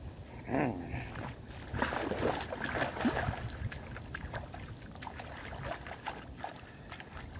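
Shallow river water splashing and sloshing as a gar is seized by hand at the water's edge. The splashing comes in irregular spurts and is busiest a couple of seconds in.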